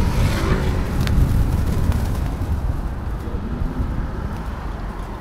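Car traffic on a city street, heard from a moving bicycle, with a strong low rumble throughout. A vehicle swells past in the first second.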